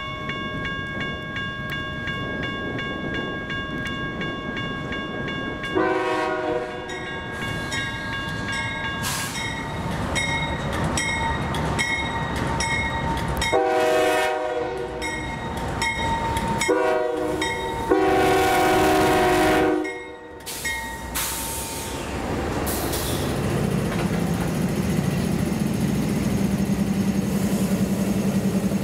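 CSX GE diesel freight locomotive approaching with its bell ringing and sounding its horn in the grade-crossing pattern: two long blasts, a short, and a long. Then its diesel engines run loud and low as the locomotives pass close by.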